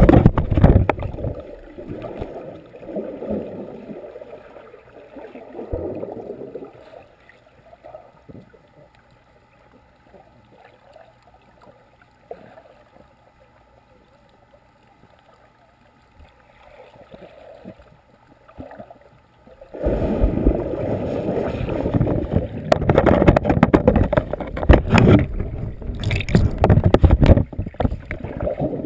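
Splashing and churning of swimmers moving in a pool, heard underwater through a GoPro's waterproof housing and muffled by it. Loud at the start, then dying down to a low wash of water. About two-thirds of the way through it turns loud and choppy again.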